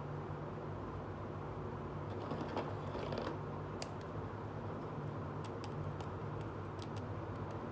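Small plastic toy accessories being handled: a brief rustle about two to three seconds in, then a scattering of light plastic clicks, over a steady low hum.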